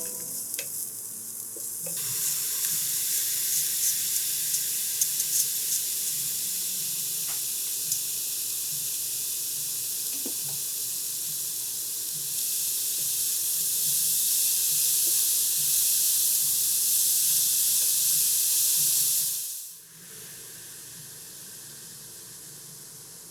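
Food sizzling in a hot frying pan, with light crackles and spatters in the first few seconds. About twenty seconds in it cuts to a quieter, steady sizzle.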